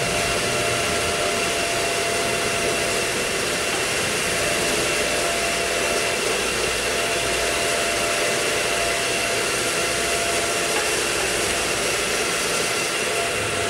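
Electric motor and hydraulic pump of a hydraulic cocoa butter press running steadily: a constant whirring hiss with a few steady whining tones.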